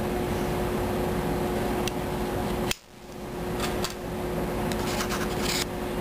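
Small clicks and a brief scrape of plastic parts being handled on a KSC Glock 18C airsoft pistol frame, over a steady background hum. The hum cuts out suddenly just under halfway through and swells back.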